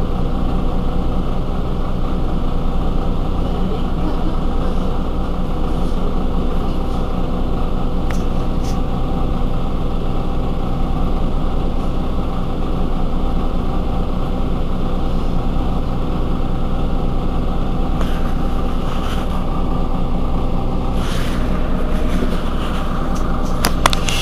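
Heuliez GX 127 city bus's diesel engine idling steadily while the bus stands still, with a few sharp clicks near the end.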